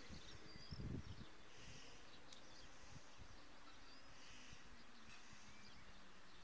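Faint, wavering buzz of a tiny whoop micro quadcopter flying, with a short low thump about a second in.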